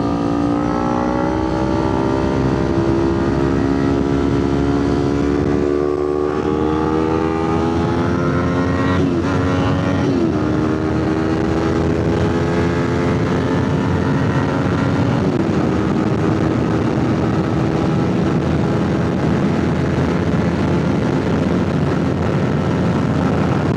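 Kawasaki Ninja 500's parallel-twin engine accelerating hard from a standstill, its pitch climbing and dropping at three upshifts about nine, ten and fifteen seconds in. It then holds a steady pitch at speed as wind rush on the helmet microphone builds.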